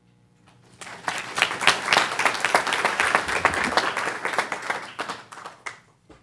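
Audience applauding: clapping swells about a second in, holds for around four seconds, then thins out and stops near the end.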